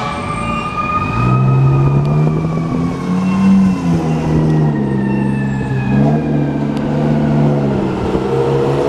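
Fire engine's mechanical Q siren winding down, its pitch falling slowly and steadily, over the running engines of the truck and the surrounding traffic, whose pitch steps up and down as they pull away.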